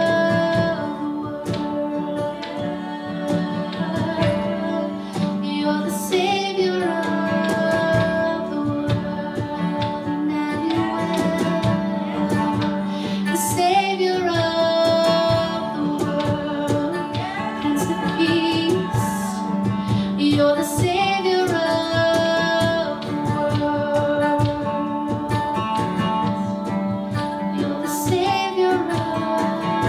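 Live worship music: a woman singing into a microphone over strummed acoustic guitar, her sung phrases rising and holding and coming round again about every seven seconds.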